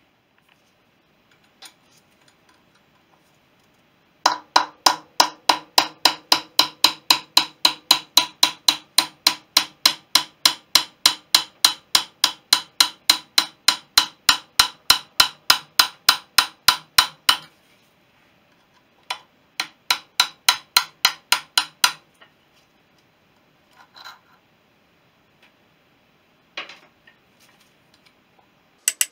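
A hammer striking a steel drift to drive the old wheel bearing out of a BSA B31's front hub. Rapid, evenly spaced metallic blows with a ring, about four a second, then a pause and a second shorter run of blows, and a few single knocks near the end.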